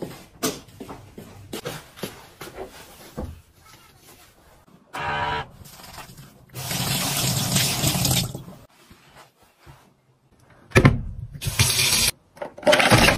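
Water from a kitchen tap running into a stainless steel sink in several stretches, the loudest near the end. About five seconds in there is a short whirr from an automatic soap dispenser, and light knocks and clicks come in the first few seconds.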